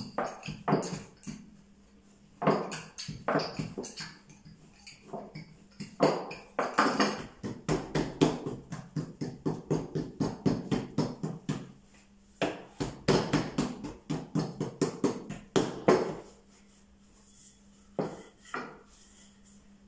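A wooden rolling pin rolling out dough on a round wooden board: bursts of quick knocks and taps as it goes back and forth, with short pauses between bursts and a couple of lone taps near the end.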